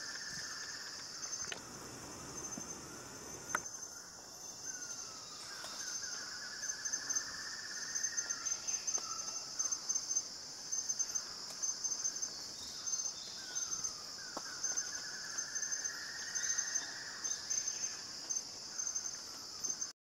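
Steady, high-pitched chorus of rainforest insects. A lower buzzy trill that rises and then holds for two to three seconds comes three times, at the start, about six seconds in and about sixteen seconds in.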